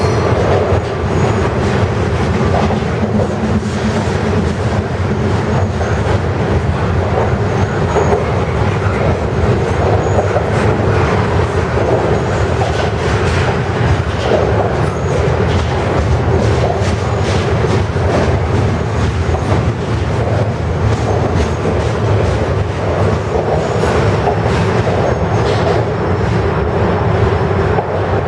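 Double-stack intermodal freight cars rolling past close by: a steady rumble of steel wheels on rail with rapid clicking over rail joints, and now and then a faint high wheel squeal.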